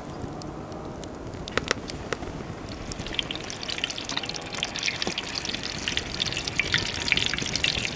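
Hot oil in a large pot over a wood fire sizzling and crackling as breaded pieces are dropped in to deep-fry; the sizzle swells about three seconds in and stays dense. A few sharp clicks come before it.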